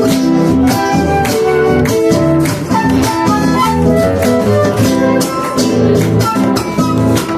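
Live Argentine folk music from a trio: acoustic guitars with a held-note melody line over steady bombo drum beats.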